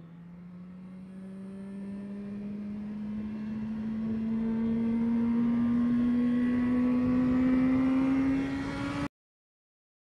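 Honda CBR650R's inline-four engine pulling steadily in one gear, its pitch and loudness rising slowly as the revs climb; the sound cuts off suddenly about nine seconds in.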